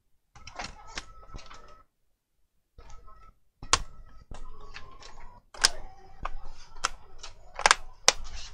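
Plastic laptop bottom cover being fitted and pressed down onto the chassis: handling rustle, then a run of sharp plastic clicks and snaps from about three and a half seconds in as its clips engage.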